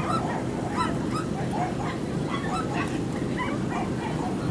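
Dogs barking in quick, short yaps, several a second, over a steady low rumble.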